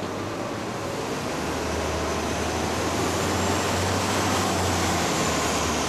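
Busy city street traffic: steady road noise, with a heavy vehicle's low rumble growing louder about a second and a half in.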